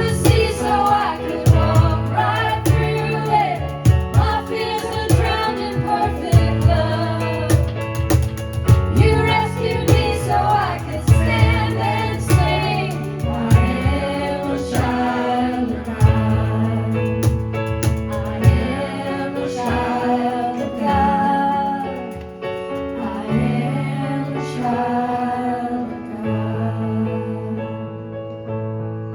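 Live worship music: singing over a band with steady bass notes and a regular beat, fading out near the end.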